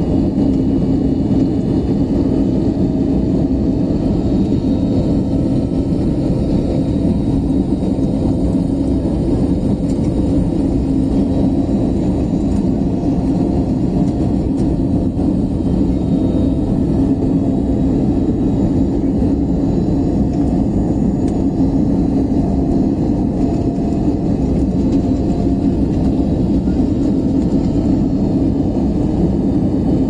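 Steady airliner cabin noise in flight: engines and rushing air heard from inside the cabin, with a constant low hum running under it.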